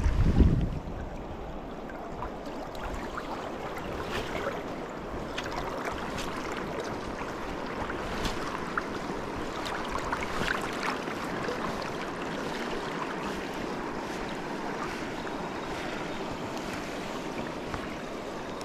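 Steady rushing of a fast-flowing river around a wading angler, with small splashes and ripples through it. A brief low buffet of wind on the microphone at the very start.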